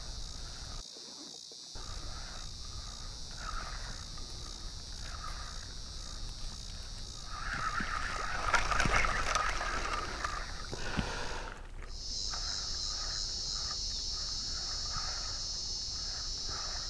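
Steady high-pitched chorus of summer insects, with a short mid-pitched call repeating about once a second. A louder stretch of rustling noise comes near the middle.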